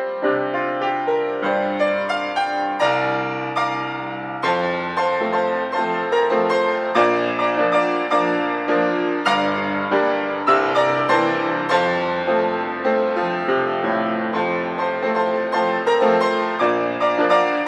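Solo piano playing a busy passage of many quick notes over bass notes that change every second or two.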